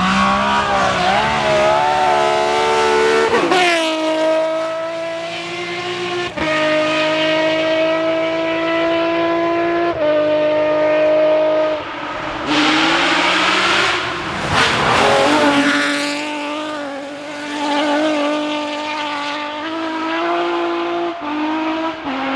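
BMW rally car engine at full throttle on a stage, its note climbing and then dropping in steps several times through gear changes. About halfway through, a loud rush of noise rises over the engine.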